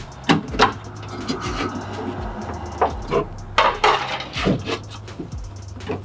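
Sharp metal clicks and knocks, irregularly spaced, as a steel cage nut is pried open and worked onto a steel door handle reinforcement plate inside a truck door.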